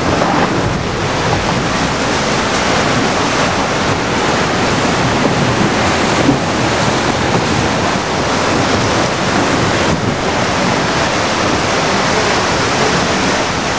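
Tsunami floodwater rushing through flooded resort grounds: a loud, steady noise of churning, debris-laden water.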